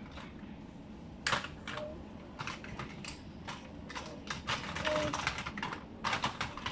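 Small plastic toy kitchen pieces (cups, spoons and utensils) clattering and clicking against each other and the plastic case as a child rummages through them by hand. The clicks are irregular and grow busier about four seconds in.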